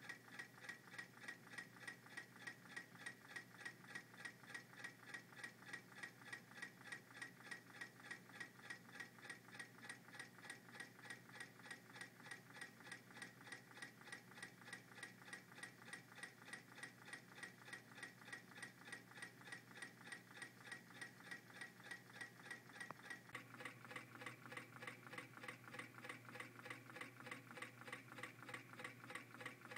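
MM-5 low-temperature-difference Stirling engine running on a mug of hot water, its crank and connecting-rod linkage ticking quietly in a steady, even rhythm. The ticking gets slightly louder about three-quarters of the way in.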